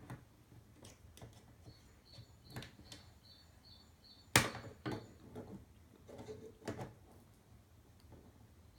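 Scattered light knocks and taps, with one sharp, loud knock a little after halfway, as if something is being worked on by hand. Under them a bird chirps in quick repeated notes, in the first half.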